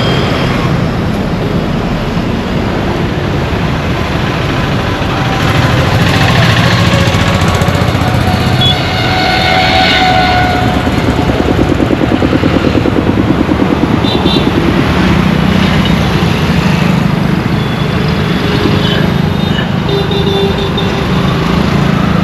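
Road traffic with motor vehicle engines passing close by, among them motorcycles. A rhythmic engine pulse stands out a little past the middle, and short tonal sounds come and go over the steady traffic noise.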